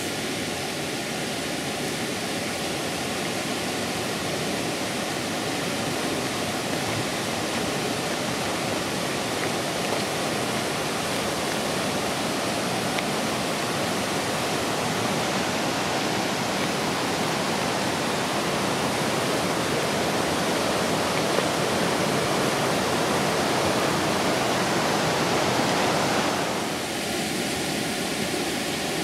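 Steady rush of a mountain river running through a gorge, an even noise of flowing water that drops a little near the end.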